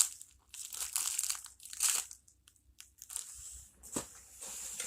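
Crinkling and rustling in several short spells as a homemade paper squishy in its packaging is handled, with a sharp click about four seconds in.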